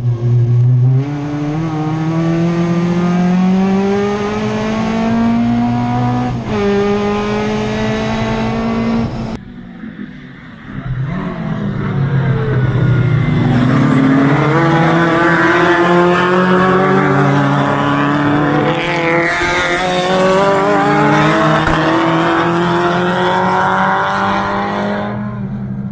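A race car's engine heard from inside the cabin, revving up through the gears: the pitch climbs, drops at an upshift about a second in and again at about six and a half seconds, then climbs again. After an abrupt break, several race cars run at full throttle, their engine notes overlapping and rising and falling as they pass.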